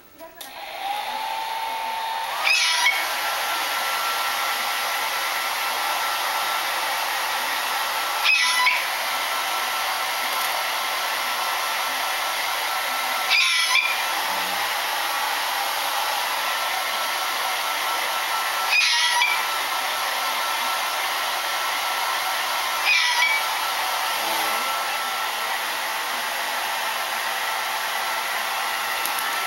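Hair dryer switched on about a second in, its pitch rising briefly as it spins up, then blowing with a steady hiss. About every five seconds there is a brief louder moment.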